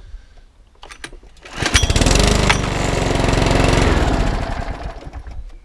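Cheap 98.5cc overhead-valve lawnmower engine starting about one and a half seconds in, running for a couple of seconds, then cutting out and winding down with a falling pitch. Stalling straight after starting is the fault, which the owner puts down to a carburettor and fuel problem.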